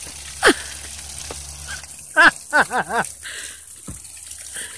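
Horse whinnying: a short call about two seconds in whose pitch wavers up and down four or five times. A brief sharp falling squeal comes just before, near the start.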